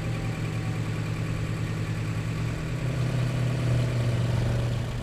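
Engine sound of an animated open jeep: a steady low, slightly pulsing hum that grows a little louder about three to four seconds in and starts to fade near the end.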